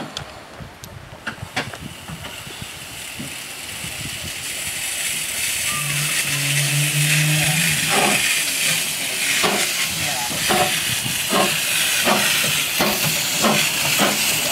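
Narrow-gauge steam tank locomotive Douglas, running as Duncan, starting away: steam hisses from the cylinders and grows steadily louder, then slow, even exhaust chuffs begin about eight seconds in, roughly one every two-thirds of a second, as it gets under way.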